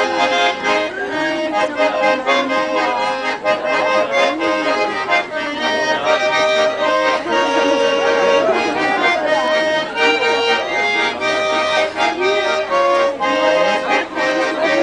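Trio of Schwyzerörgeli, Swiss diatonic button accordions, playing a folk tune together in sustained chords with a steady rhythm.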